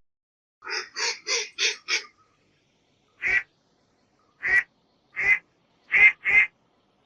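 Duck quacking: a quick run of about five quacks, then single quacks spaced a second or so apart, ending with two close together.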